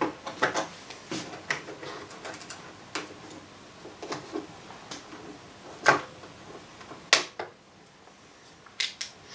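Scattered small clicks, taps and light scrapes of a screwdriver and plastic trim being prised loose from a car's door pillar, with two sharper clicks about six and seven seconds in.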